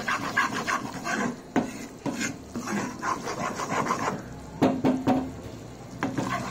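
Metal spatula stirring and scraping wheat flour that is roasting in ghee in a kadai: a string of irregular scraping strokes against the pan as the flour is kept moving until it browns.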